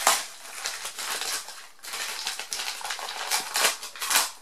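Polka-dot gift wrapping paper crinkling and rustling as a present is unwrapped by hand, irregular and louder near the end.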